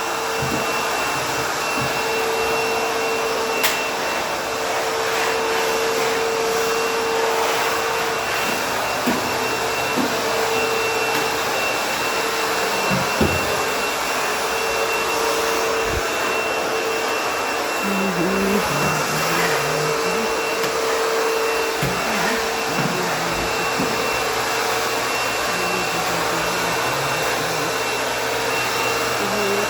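ProTeam Super CoachVac backpack vacuum running steadily on a hardwood floor, with a constant whine and a few brief clicks.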